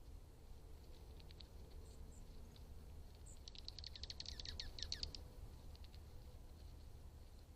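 A bird calls a quick series of short high notes, about ten a second for a second and a half, the last few dropping in pitch. A few single high chips come before it, over a faint low background rumble.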